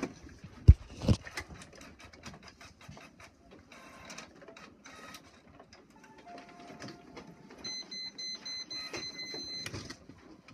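Inkjet all-in-one printer printing a page: clicks and feed noises, then a high pulsing whine for about two seconds near the end. Two thumps about a second in.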